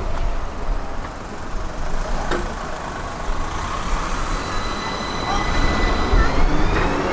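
Pesa Swing low-floor tram running along the rails, pulling away from the stop. About five seconds in, its traction motors give a whine that rises in pitch as it picks up speed.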